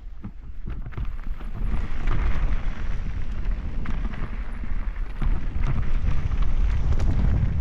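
Mountain bike riding fast down a dirt trail: knobby tyres rolling over dirt and stones, with knocks and rattles from the bike over bumps, and wind rushing over the microphone. It grows louder about a second in as the bike picks up speed.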